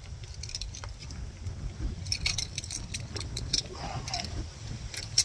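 A bunch of keys jangling and clicking as they are tried in a lock, with a burst of sharp metallic clicks from about two seconds in and one louder click near the end. Wind rumbles on the microphone underneath.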